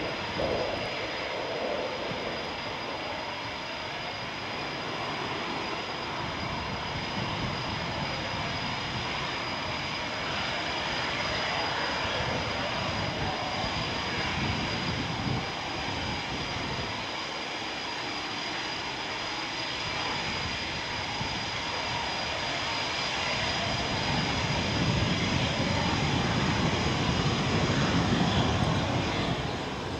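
Eurofighter Typhoon jets taxiing, their twin EJ200 turbofans running at low taxi power with a steady high whine. It gets louder near the end as a jet passes close.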